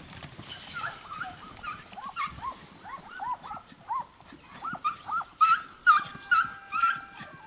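Hunting hounds yelping and giving tongue in a quick run of short, high barks that grow louder and come faster toward the end, typical of a pack working on the trail of game.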